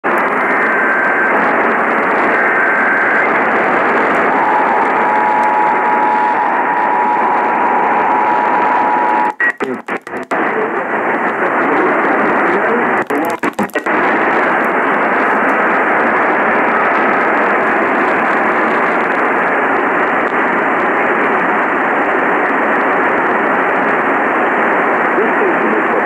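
AM radio receiver hissing with static, with steady whistling interference tones in the first half; the sound cuts out in short gaps twice as the radio is tuned to 720 AM.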